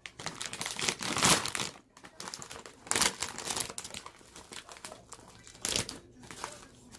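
Paper burger wrapper being handled, crinkling and rustling in several bursts, loudest about a second in.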